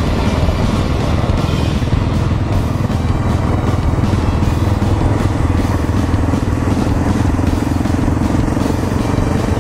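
Yamaha XT 660Z Ténéré's single-cylinder engine running steadily as the motorcycle rides along.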